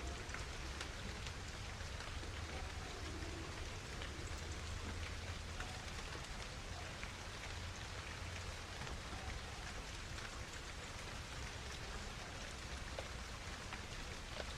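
Steady light rain: a faint, even hiss with scattered small drop ticks and a low hum underneath.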